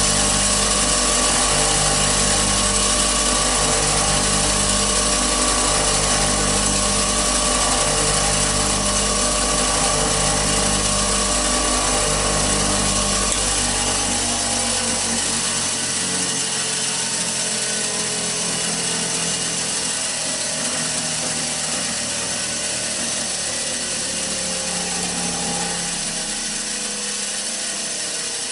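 8-inch bench grinder motor running at full speed with a steady whine and a slow pulsing beat. About halfway through its low hum fades out and the wheels go on spinning with a slowly falling whine, typical of the grinder coasting down after being switched off.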